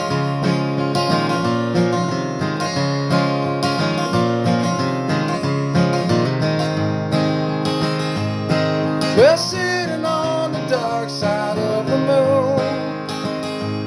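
Acoustic guitar strumming chords in a song's intro, with a gliding melody line coming in over it about nine seconds in.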